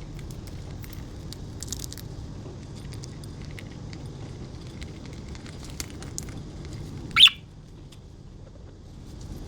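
Budgerigars pecking and cracking seed: scattered small sharp clicks over a steady low background hum, with one short, loud sharp sound about seven seconds in.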